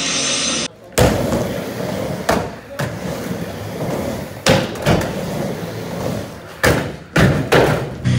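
Skateboard wheels rolling on a wooden mini ramp, with about eight sharp knocks and thuds of the board hitting the ramp. A brief snatch of music cuts off under a second in.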